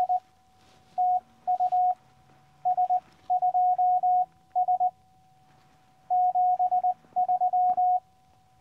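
Morse code (CW) from a QCX Mini QRP transceiver: a single steady beep keyed on and off in dots and dashes, sent in several quick character groups with a longer gap midway.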